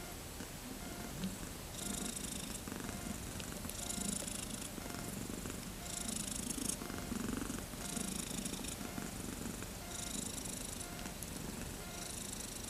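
Cat purring, a steady low rumble throughout, with a separate short hissy pulse repeating about every two seconds.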